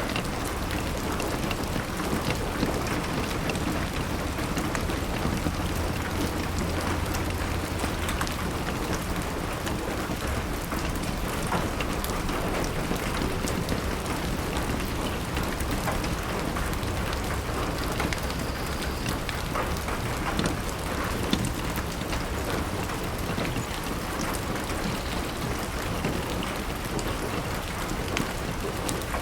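Heavy rain pattering steadily on a glass window, with many small drop clicks over an even hiss.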